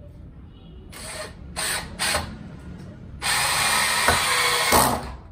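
Einhell 18 V cordless hammer drill/driver driving a screw into hardwood: three brief squeezes of the trigger, then a continuous run of about a second and a half that stops abruptly. The screw is going without a pilot hole into very hard angico wood, which makes it hard to drive.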